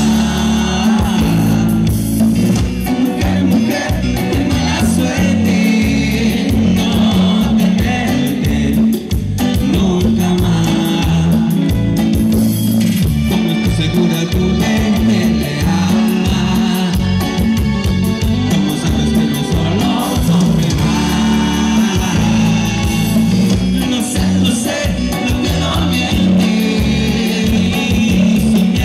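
Live band music through the PA: electric bass, guitars, keyboards and drums play steadily, with a male lead singer.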